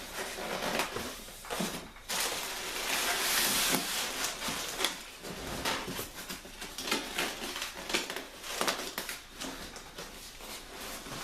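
Monitor packaging being handled: rustling and crinkling with many short clicks and knocks as a packed part is pulled at and struggled with, difficult to open.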